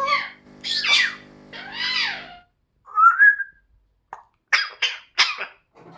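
African grey parrot vocalizing: harsh squawky calls for the first two seconds, a short rising whistle about three seconds in, then four short cough-like bursts near the end, mimicking a cough. A steady low hum runs under the first two seconds and stops.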